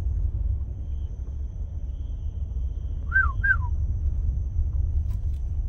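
Steady low rumble of a car driving over a dirt road, heard from inside the cabin. About three seconds in come two short whistled notes, one right after the other, each sliding down in pitch.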